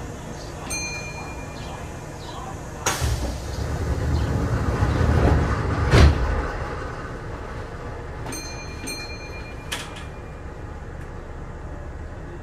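Sliding doors of a Kintetsu 8000 series train closing at a station stop: a rushing sound builds from about three seconds in to a heavy thump about six seconds in. Short electronic beeps sound near the start and again twice around eight to nine seconds in.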